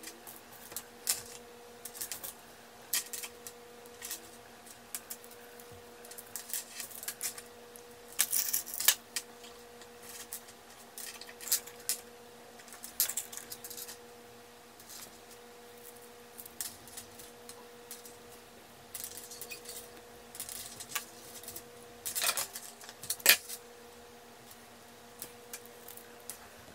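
Small plastic beads clicking and clacking in scattered bursts as they are picked out of plastic jars and strung onto a bracelet cord. A faint steady hum sits underneath.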